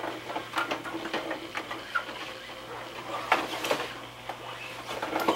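Irregular light clicks and rattles of a kaleidoscope being handled and turned, over a steady low hum.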